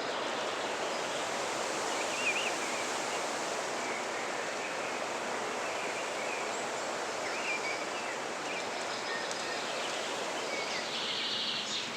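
Steady outdoor background hiss, as of distant water or wind, with a few faint, short bird chirps scattered through it.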